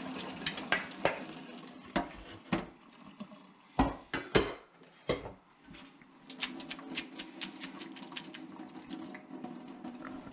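Hot water and boiled sauerkraut pouring from a steel pot into a metal colander in a stainless steel sink, the water running through. Then a string of metal knocks and clanks from the pot and colander, the loudest two about four seconds in, followed by lighter clinks and rattling.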